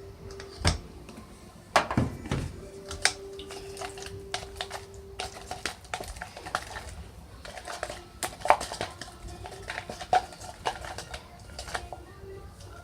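A utensil clinking, tapping and scraping against a bowl while slime is stirred, as a run of irregular clicks and knocks, a few of them louder. A faint steady hum sits under the first half.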